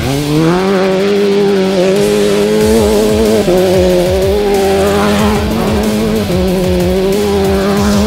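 Off-road race vehicle's engine revving up sharply and held at high revs, with brief dips as it comes off the throttle, under a loud music bed.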